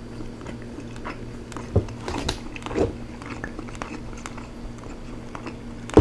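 Close-miked chewing of rotisserie chicken, with soft wet mouth sounds and a brief hum a few seconds in; a sharp click right at the end.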